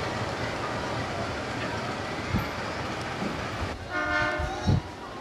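Steady rumble of trains on the tracks, then about four seconds in a KRL Commuter electric train sounds its horn for about a second, followed by a couple of short low thumps.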